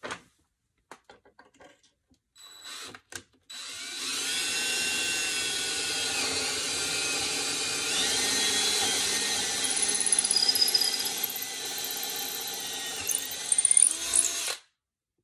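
Cordless DeWalt drill boring handle holes through a painted cabinet door, guided by a hardware jig. A few light clicks and handling knocks come first. The drill starts about three and a half seconds in, runs steadily for about eleven seconds with its pitch dipping briefly a couple of times, and stops suddenly near the end.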